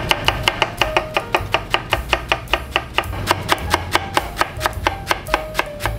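Chef's knife finely shredding cabbage on a plastic cutting board: quick, even chops, about five or six a second.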